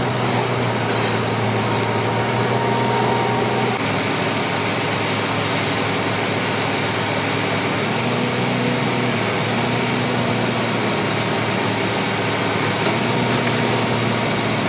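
Mobile silage baling machine running steadily. Its drone changes pitch in steps several times as it works.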